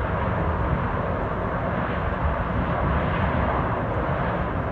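Fire from burning railroad fuel tank cars roaring steadily, a low rumble with hiss.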